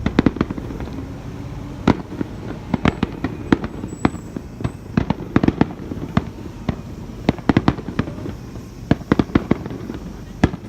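Aerial fireworks going off: many sharp bangs and crackling pops in quick, irregular succession, several a second, over a low rumble.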